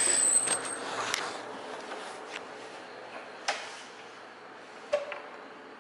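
Handling noise as a phone's microphone brushes against a jacket: rustling that fades, broken by a few sharp clicks, the last of them near the end and the sharpest.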